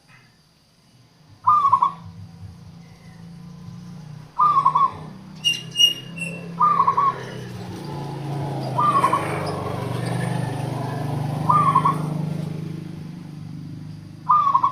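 Zebra dove (perkutut) cooing: six short, rolling coo phrases, one every two to three seconds. A brief higher chirp comes about six seconds in, over a low background rumble.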